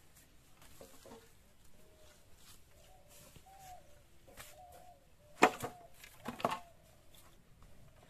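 Cut green bamboo poles knocking against each other, two sharp knocks about a second apart past the middle, as the bundle of poles is handled. Faint bird calls sound in the background.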